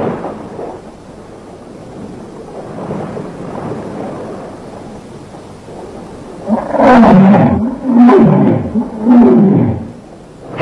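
Monster-roar sound effect for a bull-like giant monster: three loud, long bellowing roars in the second half, each bending in pitch, over a low rumbling background.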